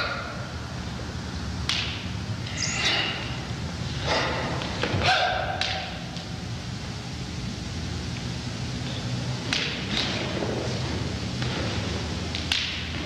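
Scattered thuds and knocks of bare feet and bodies striking a wooden floor, irregularly spaced, over a steady low hum.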